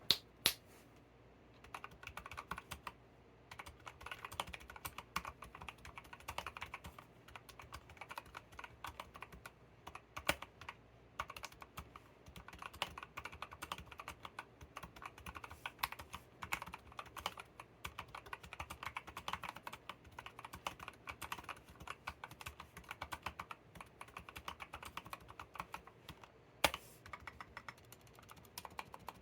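Continuous rapid typing on a mechanical keyboard fitted with homemade silent tactile switches: Gateron brown stems in Polia housings damped with silicone, on 62 g springs. The keystrokes are soft, muffled clicks with a few louder single clacks.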